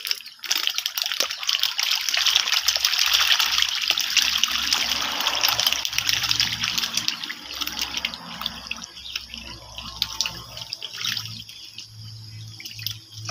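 Water splashing and churning as a dense crowd of fish thrashes at the pond's surface, starting about half a second in, strongest in the first half and thinning out over the last few seconds.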